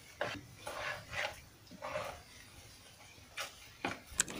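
A bare hand stirring thin rempeyek batter in a bowl: a series of short, soft, wet strokes, irregularly spaced. A sharp click comes near the end.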